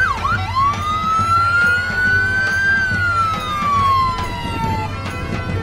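Police SUV siren: short rising whoops at the start, then one long wail that slowly rises, then falls away and stops near the end. A low steady hum runs underneath.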